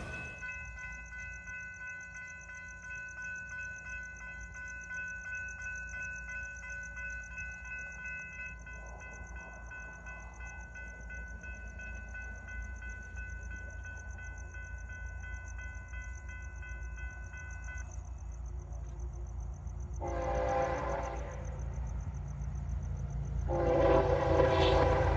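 Approaching Florida East Coast Railway diesel freight train: a low rumble that grows louder, with the locomotive horn sounding twice near the end, a short blast and then a longer, louder one. A steady high tone runs through the first two-thirds and then stops.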